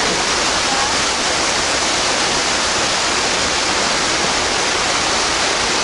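Steady rush of running water, loud and unbroken.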